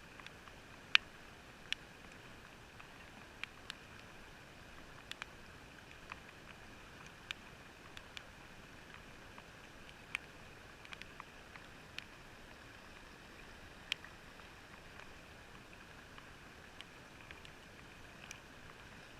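Scattered sharp clicks and taps at irregular intervals over a faint steady hiss, muffled by a sealed waterproof camera housing; the loudest click comes about a second in.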